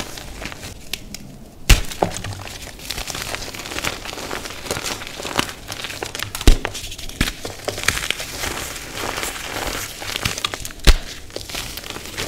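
Blocks of dyed gym chalk being crushed and crumbled by hand, giving a steady dry crunching and crackling of chalk pieces and powder. Three sharp snaps stand out, about two, six and a half, and eleven seconds in, as chalk blocks break.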